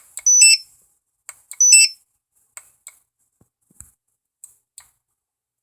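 Handheld wireless barcode scanner beeping twice, about a second and a half apart, each a short high two-note beep stepping down in pitch. Several faint light clicks follow.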